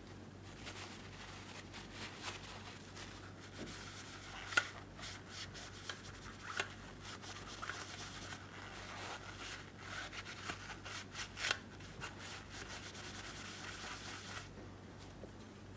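Hand rubbing and scrubbing on the old Esbit folding stove, an uneven scraping with a few sharp clicks. It stops shortly before the end.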